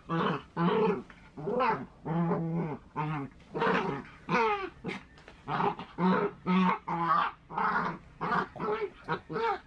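Small dogs growling and snarling at each other in a string of short bursts, about two a second, some rising or falling in pitch: a squabble over a dog bed.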